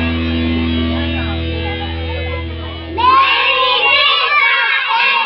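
Recorded music with a steady bass plays and fades out. About three seconds in, a group of young children's voices burst in loudly together, shouting or singing.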